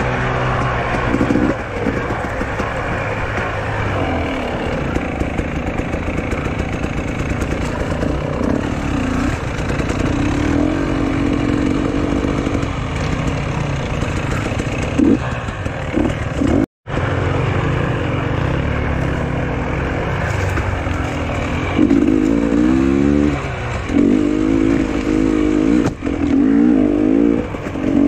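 Motorcycle engine running under load as it is ridden, its pitch rising and falling again and again with the throttle, over steady riding noise. The audio drops out for an instant about 17 seconds in.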